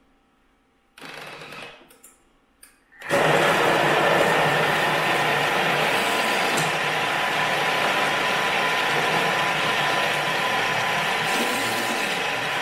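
Thermomix (Bimby) kitchen machine starting up about three seconds in and running steadily at speed 5, its blade chopping the ingredients into a paste: a loud, even whirr with a steady hum. A brief handling noise comes before it starts.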